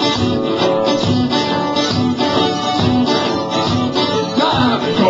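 Live acoustic band playing the instrumental opening of a blues number. An acoustic guitar and a smaller plucked string instrument are strummed to a steady beat. A wavering higher melody line comes in about four seconds in.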